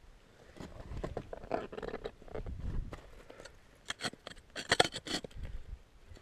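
Ice axe and climbing gear scraping and knocking on snowy rock, in irregular scrapes and clicks, with a burst of sharp clicks about four to five seconds in.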